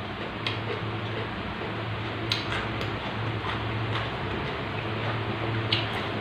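Close-up chewing of raw vegetables, with a handful of sharp crunching clicks about half a second in, around two and a half seconds and near the end, over a steady hiss and low hum.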